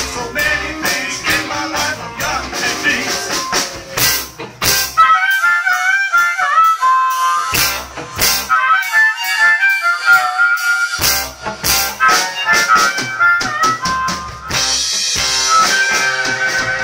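Live blues band with a harmonica solo, the blues harp playing over electric bass, guitar and drums. About five seconds in the band drops out, leaving the harmonica alone over sharp drum hits, and the full band comes back in about eleven seconds in.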